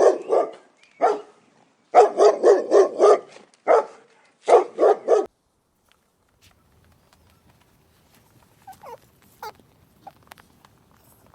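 Dog barking in quick runs of several barks each, with single barks between, stopping about halfway through.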